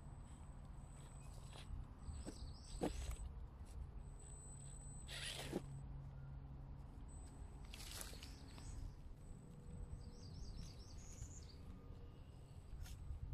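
Quiet woodland ambience: a small bird chirps in two short quick runs, over a low steady hum, with a few brief rustles and knocks.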